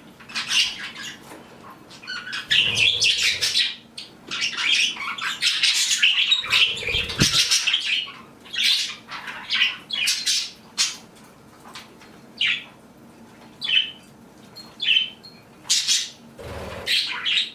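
A flock of pet budgies and other small parrots chirping and squawking in short calls, with a few low thumps about three seconds in, about seven seconds in and near the end.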